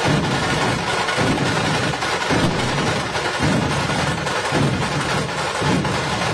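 A Maharashtrian dhol pathak ensemble playing loud, dense drumming on large dhol drums, with a deep beat swelling about once a second.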